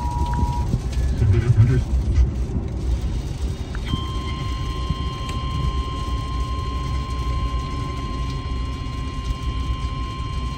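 Emergency Alert System alert tones: a two-tone pitch that cuts off just under a second in, then a single steady tone near 1 kHz that starts about four seconds in and holds, over a constant low rumble.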